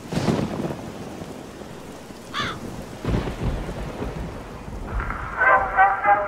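Thunderstorm sound effect: steady rain with a roll of thunder at the start and another about three seconds in, and a brief wavering high tone in between. Brass band music comes in near the end.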